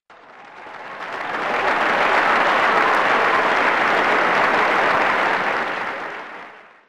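Crowd applauding, a dense even clapping that fades in over the first second or so, holds steady, and fades out near the end.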